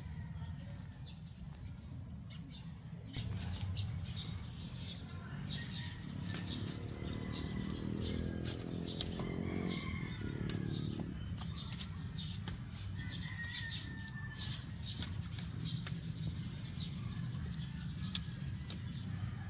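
Outdoor ambience of small birds chirping in many short, repeated notes over a steady low rumble. A low hum swells and fades about halfway through.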